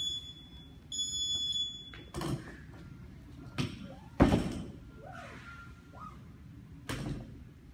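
Gym interval timer beeping the start of a countdown: a short beep, then a longer start beep about a second in. Then four heavy thuds, the loudest a little past four seconds in, as a plate-loaded barbell is set down onto wooden plyo boxes.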